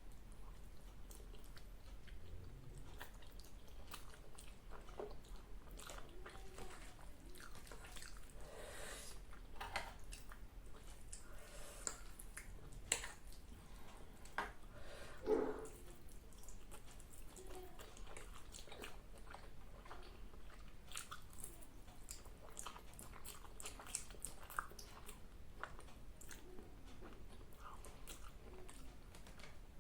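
A person chewing and biting food close to the microphone, a meal of spicy instant noodles: soft, faint chewing with many small clicks, and a couple of louder bites about halfway through.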